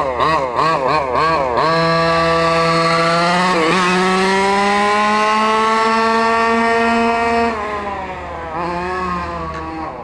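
Small two-stroke gas engine of a 1/5-scale Redcat MT RC monster truck, revved up and down a few times, then held at high revs for about six seconds with the pitch slowly climbing. Near the end the throttle eases off and the revs drop and waver lower.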